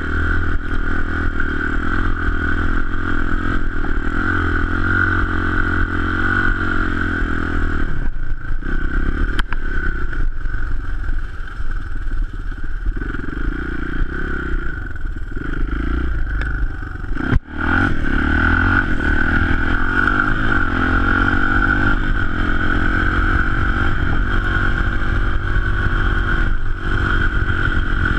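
Honda XR200 dirt bike's single-cylinder four-stroke engine running under way, its revs rising and falling as the rider works the throttle and gears. About a third of the way in it eases off for several seconds, cuts out sharply for an instant, then pulls hard again.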